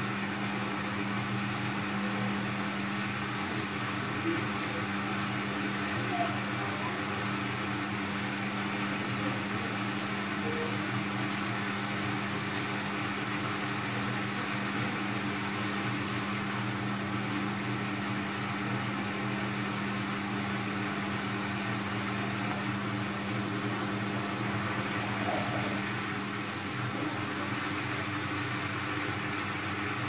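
Front-loading washing machine running on its spin setting: a steady motor hum and whir as the drum turns the load of laundry. The machine is working normally again after the repair.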